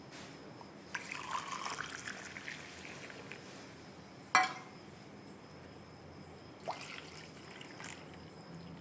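Hot milk being poured between vessels to cool it, with a trickling pour about a second in. A vessel clinks sharply about four seconds in, the loudest sound, and again more faintly near seven seconds.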